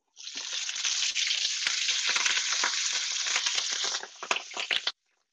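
Sliced Brussels sprouts hitting smoking-hot bacon fat in a stainless steel sauté pan, sizzling hard at once. The sizzle eases about four seconds in with a few sharp crackles, then cuts off suddenly.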